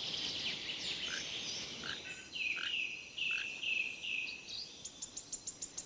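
Natural outdoor ambience: a bird gives a series of short repeated chirps through the middle, over a faint high insect hiss, with a quick run of clicks near the end.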